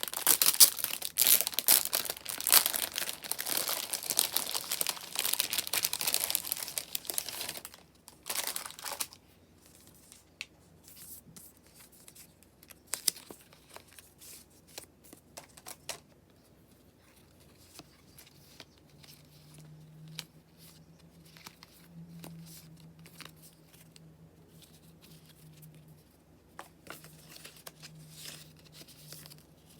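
Plastic merchandise packaging crinkling and being torn open by hand, loud and continuous for about the first eight seconds. After that come only scattered light clicks and rustles of handling.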